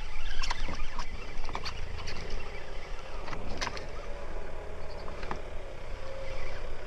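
Spinning reel being cranked to retrieve a lure, with irregular clicks and knocks from handling of the reel and rod over a steady low rumble.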